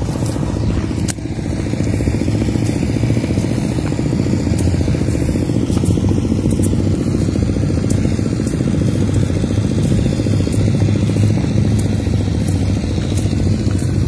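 Motorcycle engine running steadily at low revs.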